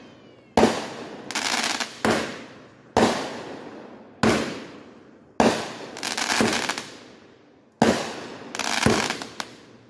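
Aerial fireworks going off: about seven sharp bangs, roughly one every second or so, each fading with an echo. Some are followed by bursts of crackling.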